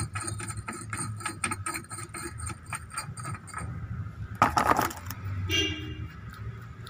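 Small metallic clicks and clinks from hands and parts working at the hub nut in the centre of a car's rear brake drum, with one louder metal clatter about four and a half seconds in.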